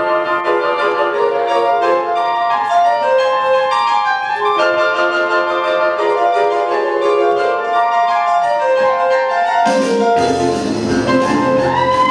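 Boogie-woogie piano music; about ten seconds in, a steady, stepping low bass line comes in and the music grows fuller.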